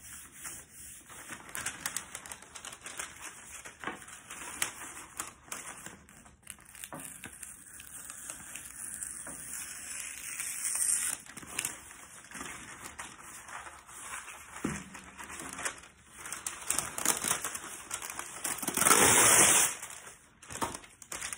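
Parchment paper rustling and crinkling as it is handled and cut with scissors, with small clicks and scrapes throughout and a louder, longer crinkle near the end.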